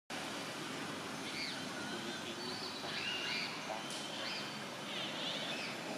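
Repeated short, high chirping calls scattered over a steady outdoor background hiss.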